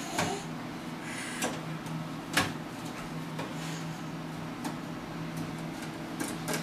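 A few scattered light knocks and clicks as a toddler's hands bump and fiddle with a box on a cabinet, the loudest about two and a half seconds in, over a steady low electrical hum.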